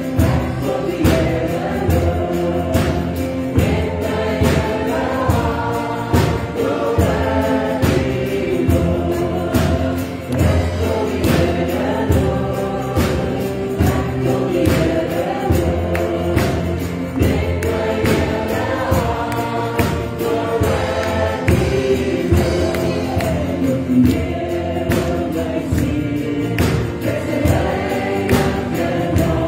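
Gospel worship song: a group of voices singing together over band accompaniment with a steady drum beat.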